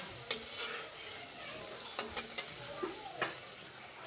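Hot oil sizzling steadily as a luchi deep-fries in a wok, with several sharp clicks and scrapes of a steel spatula against the pan.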